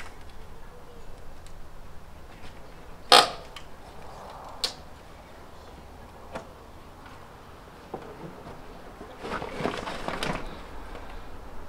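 Old clay roof tiles being lifted off a roof by hand: a loud sharp clack of tile on tile about three seconds in, a second clack a moment later, a few fainter knocks, then a spell of scraping and clattering near the end as more tiles are shifted.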